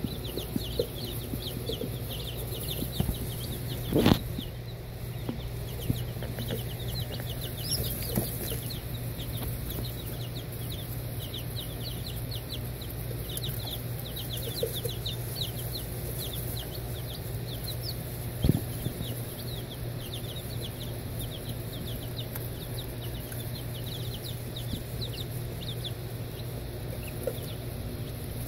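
A brood of baby chicks and turkey poults peeping: many short, high chirps overlapping without pause. A sharp knock about four seconds in and another about eighteen seconds in.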